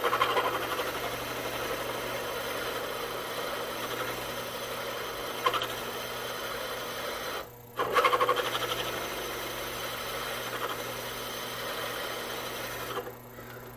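WEN benchtop drill press boring through a steel bar, the bit cutting with a steady grinding hiss. About halfway through, the cutting stops for a moment as the feed pressure is released to snap off the curling chip, then bites again. Near the end the cutting stops while the motor keeps humming.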